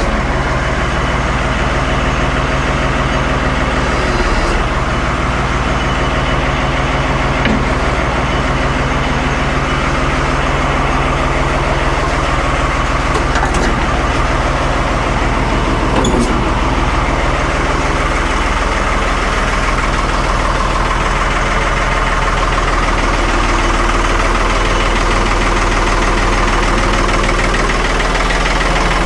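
1975 Ford 550 backhoe's diesel engine running steadily at a fast idle, freshly filled with oil and transmission fluid while the new filters fill up. Its note shifts slightly about eighteen seconds in.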